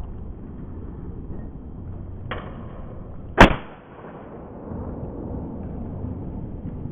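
Two shots from PCP air rifles about a second apart: a softer crack, then a louder, sharper report with a short ringing tail.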